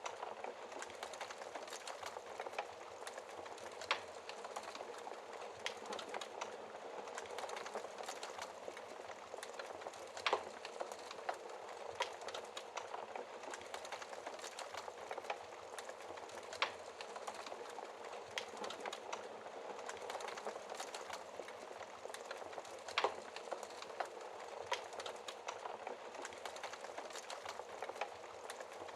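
Wood fire burning behind a glass fireplace door: a steady hiss with irregular crackles and a few louder pops.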